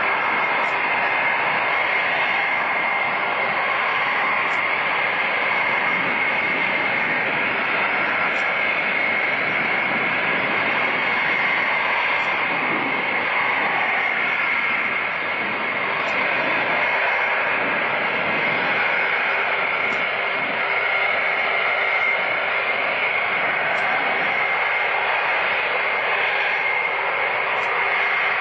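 Concorde's Rolls-Royce Olympus jet engines running steadily while the airliner holds on the runway, an even rushing noise with a steady high whine, heard through the hiss of an old tape recording.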